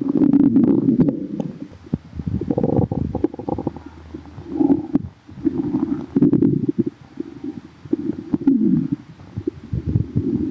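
Human stomach growling: irregular low gurgles and rumbles that swell and fade in repeated surges about every second, with crackly bubbling. The stomach is upset and aching.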